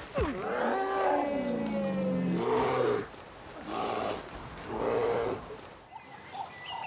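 Bears roaring: one long call falling in pitch, then two shorter calls.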